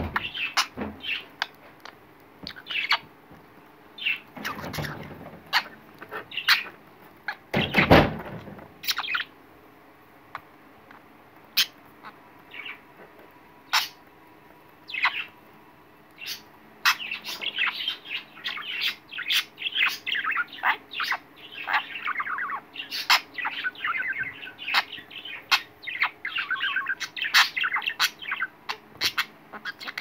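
Budgerigar chirping and chattering, scattered short calls and sharp clicks at first, turning into a dense, continuous warble about halfway through. The clicks come from its beak pecking at a plastic lighter, with a couple of heavier knocks near the start.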